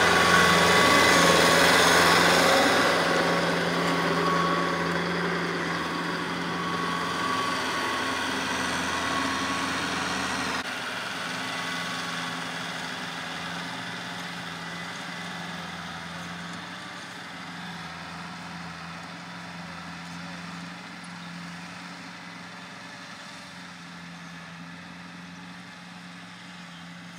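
Kubota M6040 tractor's diesel engine running steadily under load, driving a rear rotary tiller through the soil. It fades as the tractor moves away, with an abrupt drop in level about ten seconds in.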